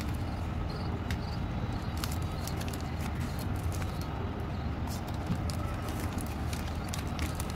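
Plastic candy wrappers crinkling and clicking irregularly as hands shuffle a bunch of wrapped sweets, over a steady low rumble.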